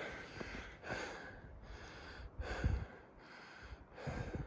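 A person breathing hard and evenly, a little faster than one breath a second, winded from the climb to the summit.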